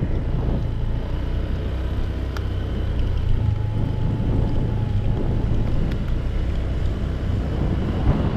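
Motor scooter's engine running while the scooter is under way, a steady low rumble with wind rushing over the microphone.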